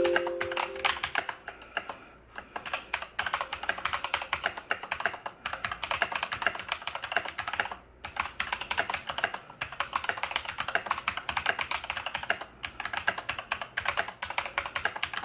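Fast, continuous typing on a Havit HV-KB389L mechanical keyboard with brown switches: a rapid run of key clacks, not really clicky, broken by a few short pauses.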